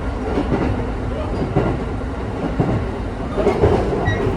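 Steady low rumble and hum inside the carriage of a JR electric local train, with faint irregular knocks.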